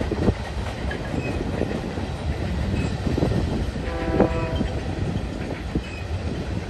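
Freight train tank cars rolling past: a steady rumble of steel wheels on rail with irregular clacks, and a brief pitched tone about four seconds in.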